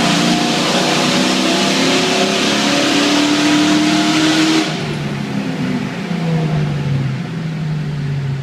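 Exhaust of a 2004 GT with its catalytic converters removed, run hard through a tunnel, its pitch rising under throttle. About four and a half seconds in, the throttle is lifted and the sound drops to a quieter, lower drone that falls in pitch.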